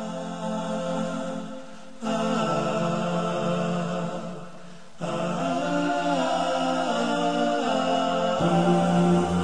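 A cappella vocal music, likely the start of an Islamic nasheed: layered voices hold long notes, and the harmony shifts about every three seconds.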